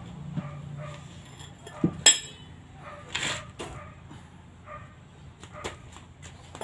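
Metal hand tools clinking and knocking on each other and on a concrete floor: a few separate sharp strikes, the loudest about two seconds in, with a short scraping rush a second later. A low hum fades out in the first second.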